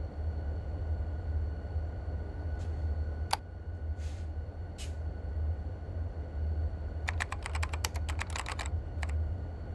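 Typing on a keyboard: a few scattered keystrokes, then a quick run of keystrokes about seven seconds in, over a steady low hum.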